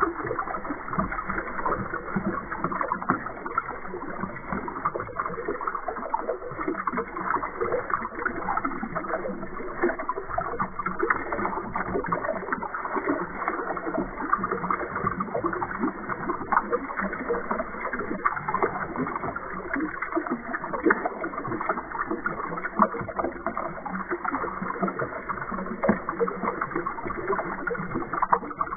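A stream of water pouring and splashing steadily into water in a container, a continuous churning splash with fine crackles of bursting bubbles.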